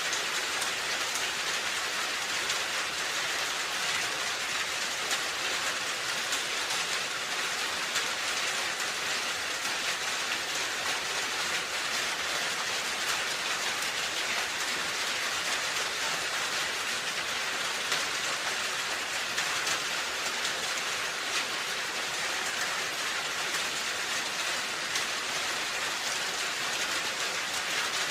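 Steady rain falling on a roof, a dense even hiss of drops with fine pattering ticks throughout.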